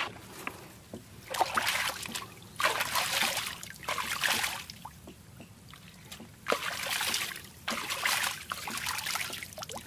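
Live eels writhing in a plastic bucket with a little water, splashing and sloshing in several short, irregular bursts.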